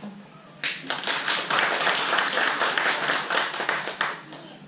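Audience clapping, starting about half a second in, running for about three and a half seconds and dying away near the end.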